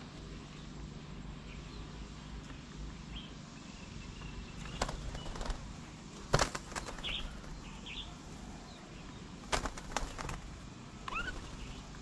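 Birds leaving a feeding table: a few sudden flaps and clatters of wings, the loudest about six seconds in and another pair near ten seconds. Short rising bird chirps come in between and near the end.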